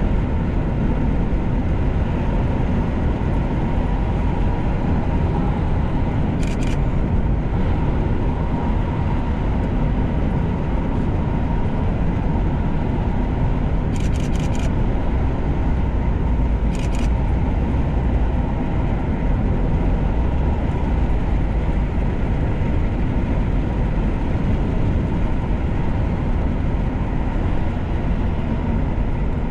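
Steady low rumble of a car driving along a road, engine and tyre noise with no change in level. A few short clicks, one about six seconds in and a few more between fourteen and seventeen seconds in.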